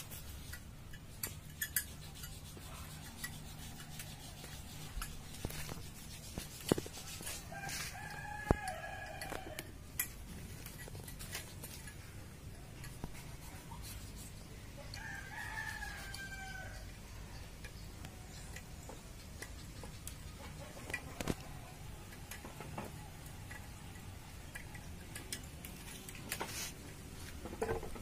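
A rooster crows twice, about eight and fifteen seconds in, each call drawn out for a second or two. Scattered sharp clicks and knocks run throughout, the loudest a couple of knocks around the first crow.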